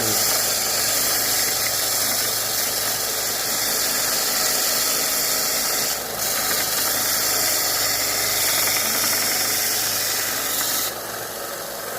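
Central Machinery 1-inch by 30-inch belt sander running with a piece of 2x4 held against the belt: a steady abrasive hiss over the motor's hum. The hiss breaks briefly about halfway through and stops about a second before the end as the wood comes off the belt, while the motor keeps running.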